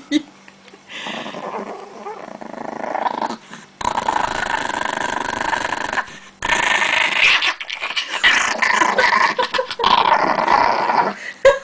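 Chihuahua growling steadily, a warning growl as it guards a plate of pancakes from a reaching hand. The growl gets louder about halfway through.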